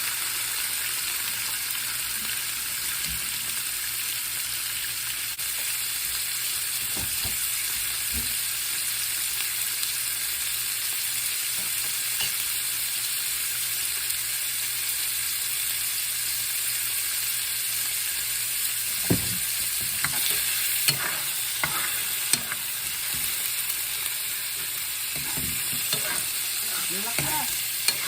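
Chicken frying in hot oil in a pan, a steady sizzle. In the second half it is stirred, with short scrapes and clinks of the utensil against the pan.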